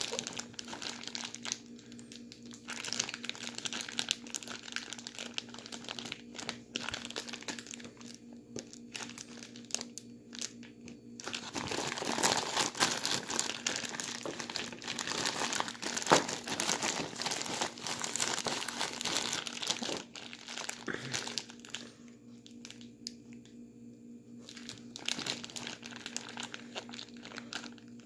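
Plastic bag crinkling and rustling as it is shaken and squeezed, with the ice and salt inside crunching, irregular and louder through the middle stretch.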